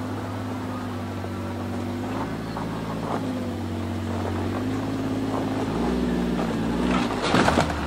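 Kawasaki Mule Pro FXT's three-cylinder engine running at low speed as the side-by-side crawls over rocky ground, its pitch shifting with the throttle and growing louder as it approaches. A short burst of scraping noise comes near the end.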